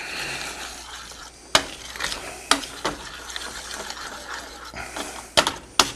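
Metal tongs stirring a thickening wine-and-butter pan sauce in a stainless steel skillet: a few sharp clinks and scrapes of metal on the pan over a faint steady hiss, with two quick clinks near the end.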